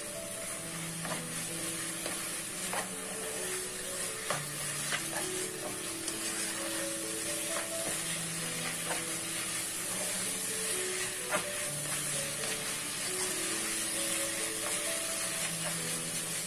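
Ground meat, diced aubergine and onion sizzling in a pot while being stirred with a spatula, with scattered light clicks and scrapes of the spatula against the pot. Soft background music plays underneath.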